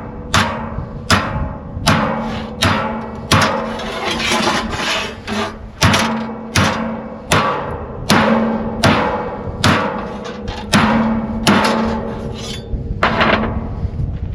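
Hammer blows on steel plate, struck again and again about once every three-quarters of a second, each blow ringing briefly.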